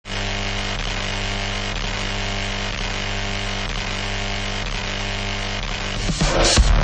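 Electronic music intro: a steady droning synth chord with a faint pulse about once a second. About six seconds in it swells into a louder, rising sweep as the track builds.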